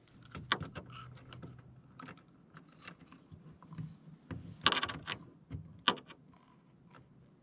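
Fishing reel being cranked in, with a run of light clicks and rattles of tackle and a few sharper knocks, the loudest a little past the middle.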